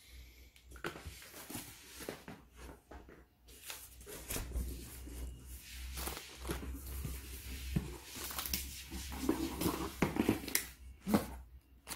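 A cardboard box being opened and the plastic-wrapped grocery packages inside handled: irregular rustling, crinkling and knocks of cardboard and plastic.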